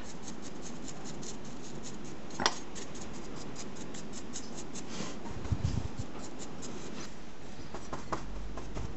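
Dry paintbrush scratching in quick short strokes over a model adobe wall and the paint palette, with a sharp tick about two and a half seconds in and a few low handling bumps around five to six seconds.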